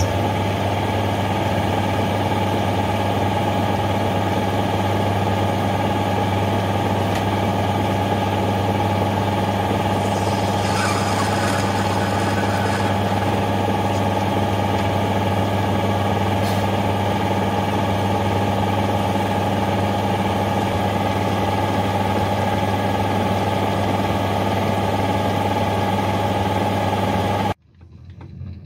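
Metal lathe running with a steady pitched hum as its three-jaw chuck spins a brass bar. From about ten seconds in, a few seconds of added high hiss as the tool faces the brass end. The lathe cuts off suddenly near the end.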